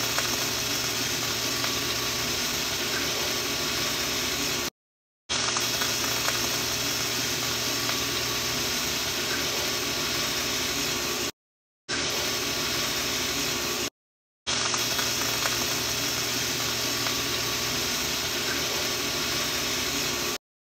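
Bread frying in butter in a hot pan, a steady sizzle. The sound cuts out completely for about half a second four times.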